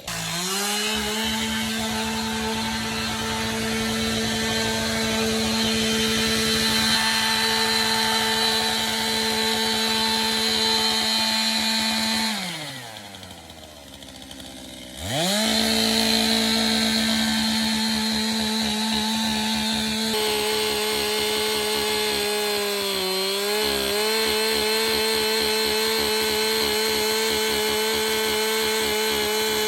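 Two-stroke chainsaw running at high revs. About twelve seconds in it drops to idle, and three seconds later it is revved back up and runs steady again, dipping briefly in pitch later on.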